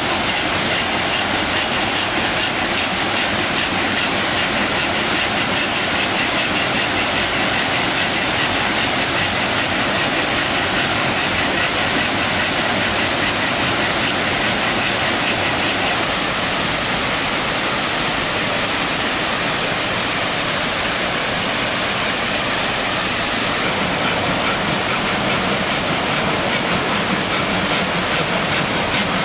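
Steady rush of a small waterfall and stream cascading over rocks. The water sound shifts slightly about halfway and again near the end.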